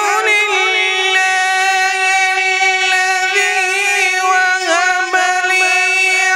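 A man's voice reciting the Quran in melodic tajweed style, holding long high notes with small ornamental turns in pitch, in one nearly unbroken phrase.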